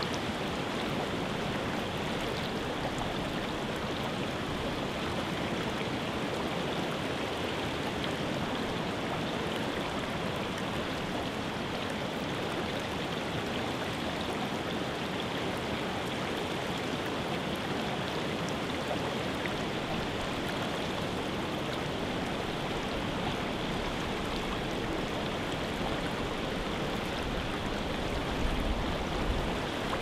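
Creek water running steadily over a small riffle, an even rushing sound. Near the end a gust of wind buffets the microphone, adding a low rumble.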